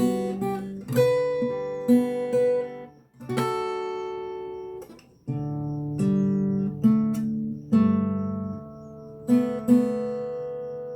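Solo acoustic guitar played fingerstyle: plucked notes and chords of a slow melody, with two short pauses midway and a final chord left to ring and fade near the end.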